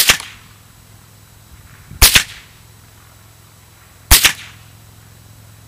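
Three .22 LR rifle shots from a Ruger 10/22 firing Winchester M22 40-grain rounds, about two seconds apart, each a sharp crack heard as a quick double.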